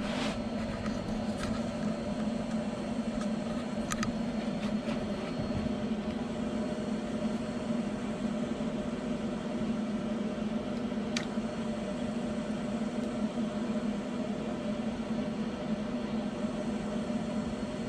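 Twin brushless RC motors driving the tracks of a Kyosho Blizzard 2.0 snow vehicle, running with a steady hum at a constant pitch, with a few sharp clicks.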